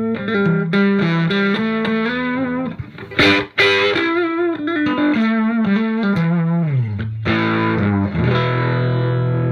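Gibson Les Paul 1959 Reissue on its middle pickup setting, with both humbuckers on, played through a hand-wired Marshall JTM45 Plexi clone with KT66 power tubes into a 1x12 cabinet, at a low-gain setting. Single-note lead lines with bends and vibrato, a couple of quick strums, a slide down, then a chord struck about three quarters of the way through and left ringing.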